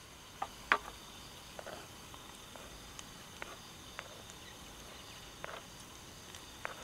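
Knife cutting through a block of meat on a plastic cutting board: several short, irregular taps of the blade on the board, the loudest about a second in, over a steady chorus of crickets.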